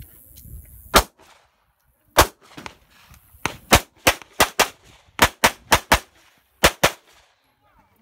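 A 9mm Glock 34 pistol fired in a rapid string of about a dozen shots: two single shots about a second apart, then quick pairs and runs of shots with short pauses between, ending with a pair about a second before the end.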